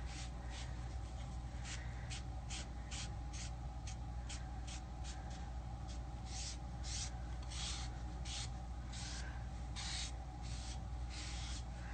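A wet wipe rubbed over a painted, stencilled panel in short quick strokes, wiping off paint: a soft scrubbing, about two strokes a second with small pauses between them.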